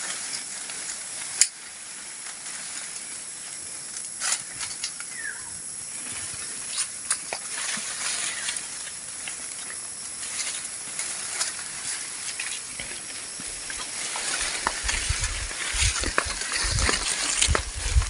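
Leaves and twigs of a calamansi tree rustling as its branches are pulled and handled, with scattered clicks and snaps over a steady hiss. In the last few seconds, low rumbling thumps as leaves brush against the microphone.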